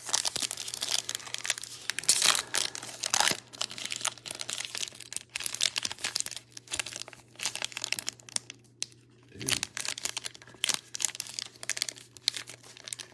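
Foil trading-card pack wrapper crinkling and tearing as fingers work at its top seam, which is glued so tight it will not give.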